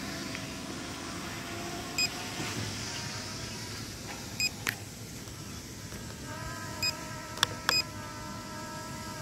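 SJRC F11s quadcopter's brushless motors and 7035 Cinelifter propellers humming overhead, a steady buzz whose pitched tone grows stronger about six seconds in. Short high beeps sound about every two and a half seconds, with a few sharp clicks.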